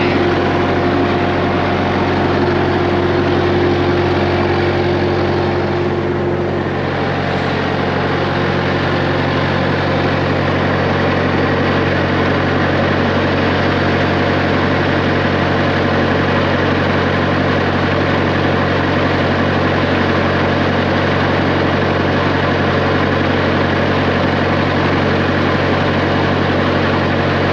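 Skid steer's diesel engine idling steadily, with a steady higher whine that stops about six seconds in.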